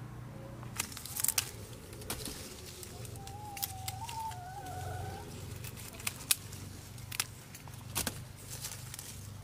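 Scattered sharp clicks and knocks over a steady low hum, with a wavering, pitched call lasting about two seconds around the middle.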